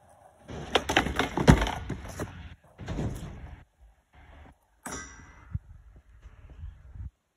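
Skateboard wheels rolling and clattering over the planks of a wooden pallet deck, with a heavy knock about a second and a half in, then a shorter clatter around three seconds. Near five seconds comes a sharp clack with a brief ring, as the board is picked up, followed by lighter knocks.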